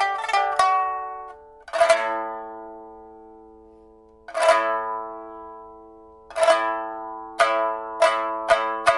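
A 2012 Cao Weidong rosewood pipa, freshly fitted with a new soundboard and frets, being played: a few quick plucked notes, then two loud strummed chords each left to ring out for over two seconds, then chords struck more and more quickly toward the end.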